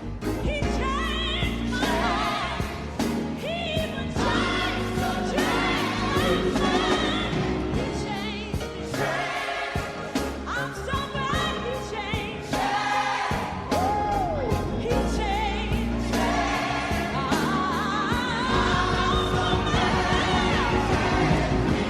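Gospel music: a choir and lead voices singing with vibrato over a band with bass and drums.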